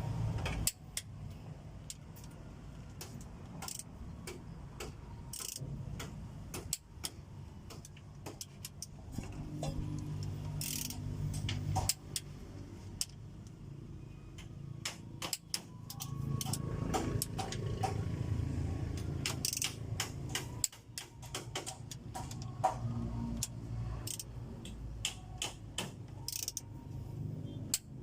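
Hand tools clicking and clinking against metal engine parts, many sharp taps at irregular intervals over a low background hum, as bolts are tightened during a diesel engine's top overhaul.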